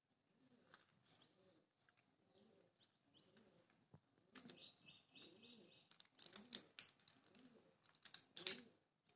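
Doves cooing softly, a low call repeated about twice a second, with a burst of high chirping about halfway through and scattered sharp clicks, the loudest near the end.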